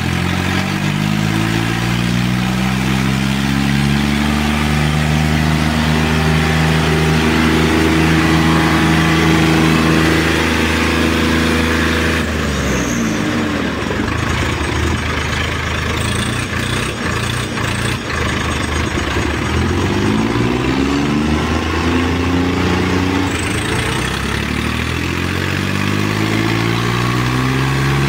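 Diesel engines of two tug-of-war tractors, a Swaraj and a John Deere, running hard at high revs under heavy pulling load. The engine note climbs steadily for the first ten seconds, breaks and shifts about twelve seconds in, then climbs again twice later.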